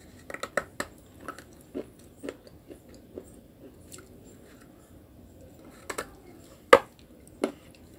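Crisp crunches of a dry white clay chunk being bitten and chewed close to the mouth. A quick cluster of crunches comes in the first second, a few softer chews follow, then three sharp bites near the end, the middle one the loudest.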